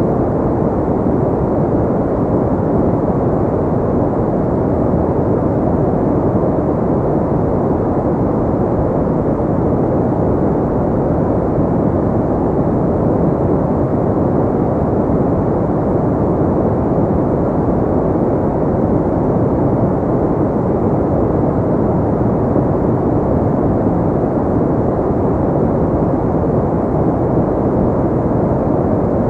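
Synthetic pink noise: a steady, unchanging rushing hiss, heavier in the low and middle range and dull at the top.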